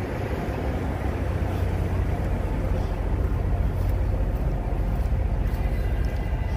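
Steady low rumble of idling semi-truck diesel engines, growing louder about a second in as the microphone nears the parked trucks.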